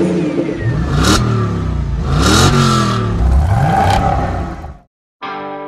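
Car engine revving up and down several times, with swells of noise, cutting off suddenly about five seconds in; guitar music starts near the end.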